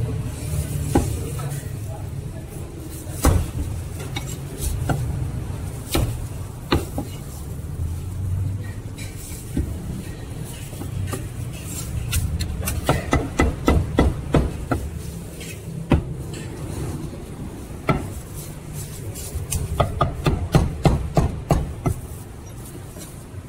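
Cleaver chopping roast chicken on a thick round wooden chopping block: sharp knocks of the blade through meat and bone into the wood, single strokes at first, then quick runs of several chops around the middle and again near the end.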